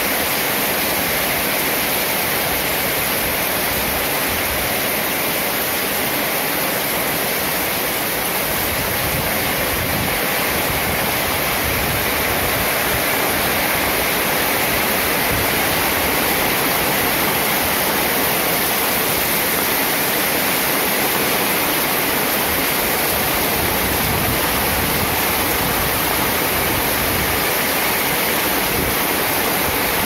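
Heavy rain falling steadily: an even, unbroken hiss.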